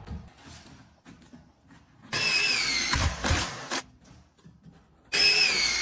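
Power drill-driver running in two bursts of about a second and a half, a high whine that dips slightly as it loads up, driving screws through a door frame to fix it in its opening.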